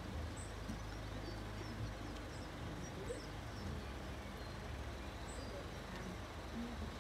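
Small birds chirping a few times, faint, over a low steady outdoor rumble.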